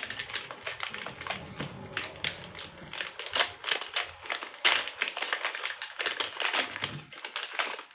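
Plastic snack wrapper crinkling and crackling as it is handled and opened, an irregular run of crackles with louder snaps about three and a half and nearly five seconds in.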